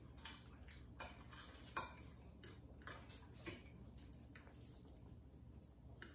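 Forks and utensils lightly clicking and tapping against dinner plates during a meal, a handful of scattered clicks with the sharpest just under two seconds in, over a low steady room hum.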